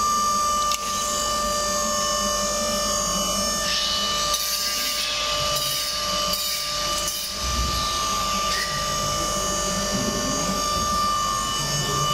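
Steady hum of workshop machinery with several constant tones. From about four seconds in, for about four seconds, a rasping, scratchy sound as a steel tape measure is drawn out and handled against a bent steel tube clamp.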